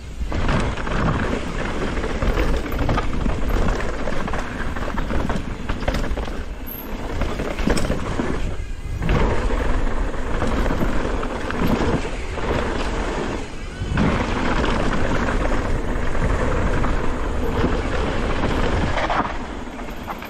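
Mountain bike descending a bike-park trail at speed: a steady rush of wind over the microphone mixed with tyre noise and frequent knocks from the bike over rough ground, briefly quieter twice.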